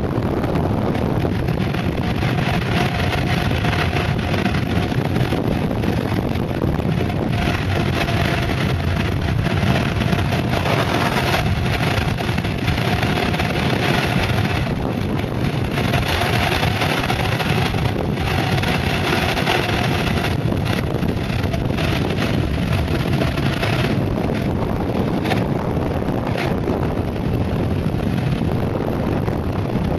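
Steady wind rush over the microphone, mixed with the rolling noise of a mountainboard's pneumatic tyres on asphalt at speed.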